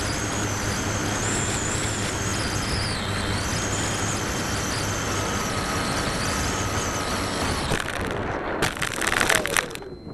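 Electric motor of an RC plane running with a wavering high whine and wind rush on the onboard camera. Near the end comes a loud burst of clattering and scraping as the plane hits the grass, and the motor winds down with a falling tone.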